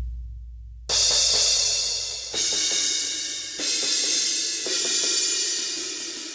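Sampled cymbals from EZdrummer 3's Big Stage EZX kit, struck four times about every second and a half, each crash ringing out in a long, bright wash. The samples carry the reverberation of a large theater room.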